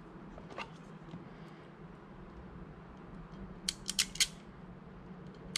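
A hand wire stripper clicking shut on a thin wire: a faint click early, then a quick cluster of about four sharp snips a little past the middle.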